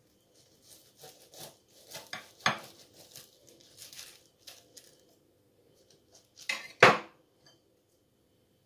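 A knife sawing through the flaky baked crust of a puff-pastry apple turnover on a ceramic plate: a run of small crackles and scrapes. Near seven seconds in comes a single louder clink of cutlery on the plate.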